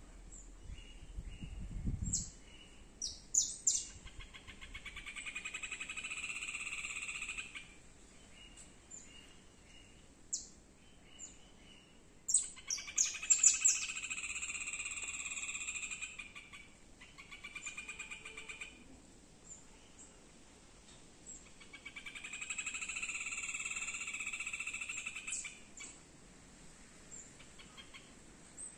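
Animal calls: three long, rapidly pulsed trills of about three seconds each, coming at roughly even intervals, with short sharp high chirps between them. There is a low bump about two seconds in.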